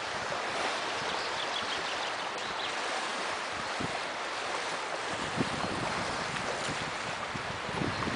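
Steady rush of choppy river water around a kayak, mixed with wind buffeting the microphone.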